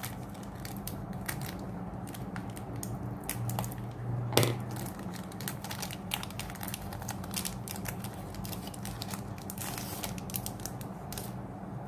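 Foil wrapper of a Pokémon booster pack crinkling and rustling as it is opened by hand and the cards are pulled out, with many small clicks and one sharper knock about four seconds in. A steady low hum runs underneath.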